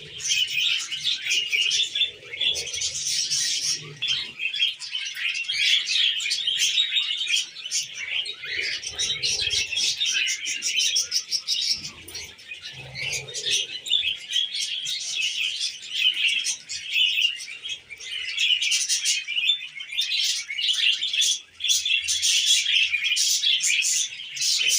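A group of budgerigars chattering and chirping continuously, many short calls overlapping.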